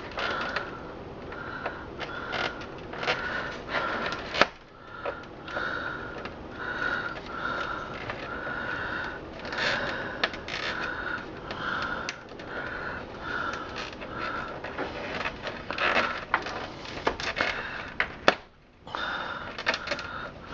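Knife blade sawing back and forth at a plastic cable tie in a computer case, about one and a half short strokes a second, with scattered sharp clicks and taps of plastic and cables.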